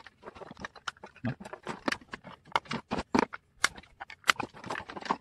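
Plastic model parts being cut and trimmed with a hand tool: a quick, irregular series of sharp clicks, cracks and scrapes as the plastic gives way.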